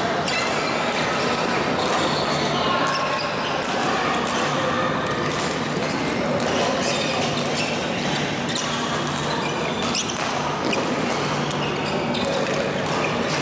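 Badminton play in a large hall: sharp racket-on-shuttlecock hits scattered irregularly from several courts, over a steady reverberant background.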